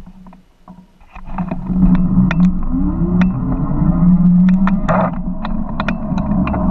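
Fat-tire electric bike being ridden: from about a second in, a steady motor hum and tyre and wind rumble, the hum rising in pitch as the bike picks up speed, with scattered sharp clicks and knocks.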